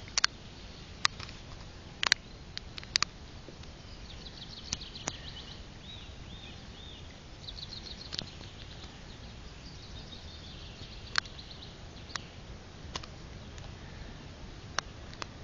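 Small birds chirping and trilling in short high bouts, over a steady low rumble, with scattered sharp clicks that stand out louder than the birdsong.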